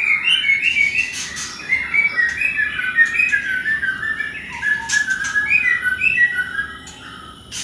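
White-rumped shamas chirping: a rapid, almost unbroken run of short high notes that thins out near the end.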